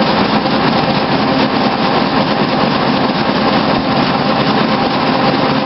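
Web offset printing press running: a steady, loud mechanical noise with a low hum underneath.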